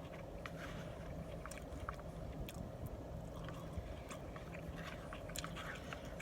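A person chewing a mouthful of burrito bowl, with scattered small wet mouth clicks and light fork or container scrapes, over a steady low hum.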